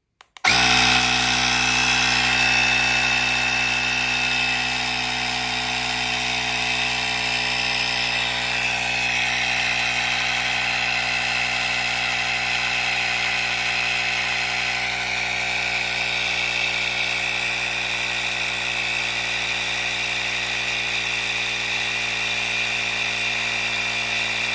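Battery-powered portable tire inflator's electric air compressor switching on about half a second in and running steadily while inflating a sports ball.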